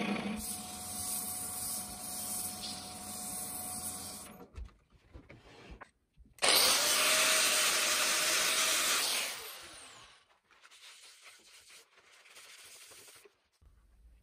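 A wood lathe runs with a cherry vase spinning on it for about four seconds. After a short pause, an angle grinder with a sanding pad spins up with a rising whine and sands the vase's foot for about three seconds, the loudest part. Fainter noise follows.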